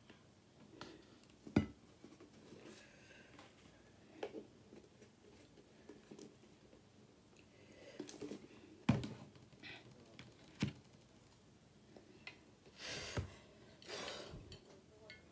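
Scattered clicks and sharp knocks of tableware being handled: a plastic squeeze bottle of barbecue sauce poured, capped and set down at the plate, the loudest knocks about one and a half seconds in and about nine seconds in. Near the end there are two short noisy bursts as an insulated water bottle is picked up.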